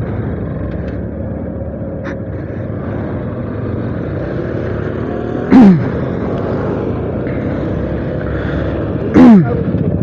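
Motorcycle running at riding speed, a steady low rumble. Twice, about five and nine seconds in, a short, very loud sound falls in pitch.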